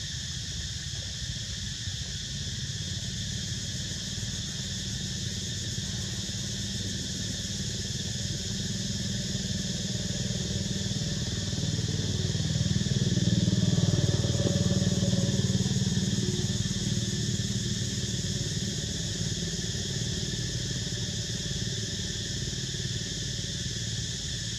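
A motor vehicle engine running, growing louder to a peak about halfway through and then fading again, over a steady high-pitched drone.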